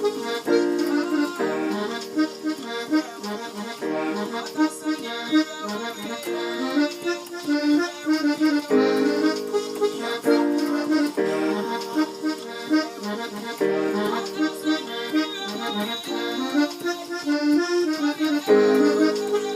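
Keyboard playing a Ghanaian gospel groove and backing in F: held chords that change every second or two, with a melody line moving over them.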